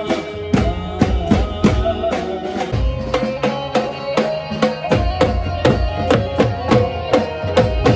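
Live garba band music: tom drums and a dhol struck with sticks in a fast, steady beat, with a melody line held over it.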